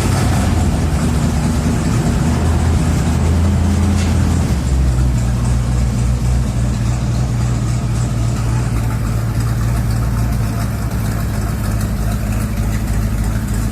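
Chevy 454 big-block V8 with throttle-body injection running evenly through a side exhaust, now firing on all eight cylinders after new plugs and wires cured its misfire. The engine note shifts about four and a half seconds in.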